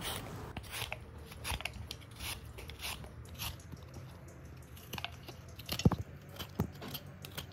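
Y-shaped vegetable peeler scraping the skin off a potato in quick, short crisp strokes, a couple each second. Two sharper taps land near the 6-second mark.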